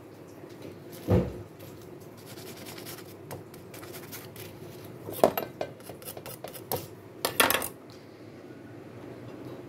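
Kitchen utensils and dishes clinking and knocking: one thump about a second in, then a run of sharp clatters in the second half.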